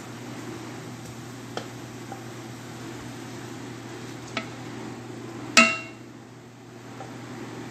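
Steady low hum with a couple of light clicks, then about five and a half seconds in a single loud metallic clang with a short ring as something strikes the stainless steel cooking pot.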